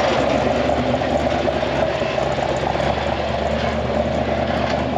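Rock-crawler buggy's engine running steadily at low speed as it crawls up a sandstone ledge.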